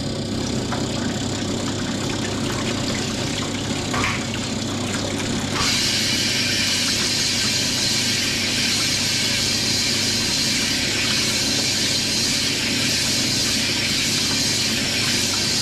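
Cylinder honing machine running as it hones a vintage BSA motorcycle cylinder bore, taking out the last half-thou that the bore tightened by as it cooled. A steady machine hum throughout, and about five and a half seconds in a steady hiss joins as the hone works in the bore with honing oil flowing.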